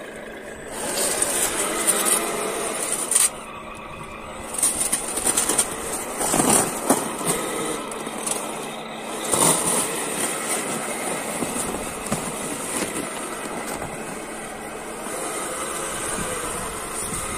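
Radio-controlled scale model truck driving through snow, its drive motor and gears giving a steady high whine while the plow blade pushes and scrapes the snow aside. Several louder surges of noise come in the first half.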